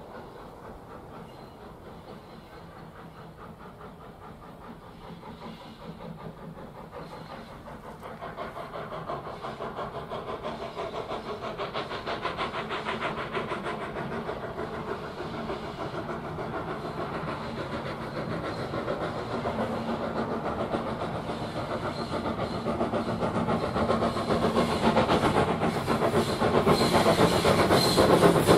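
Steam locomotive Lambton Colliery No. 29, an 0-6-2 tank engine, approaching with a passenger train under steam: a rapid rhythmic chatter that grows steadily louder as it draws near, loudest at the end.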